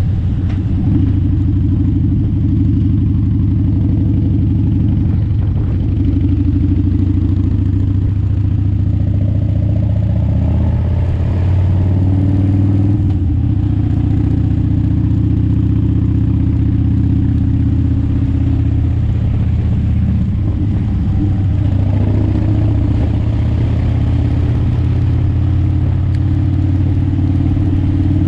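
A road vehicle's engine running steadily under way, with its pitch shifting a couple of times, about eleven and twenty-one seconds in.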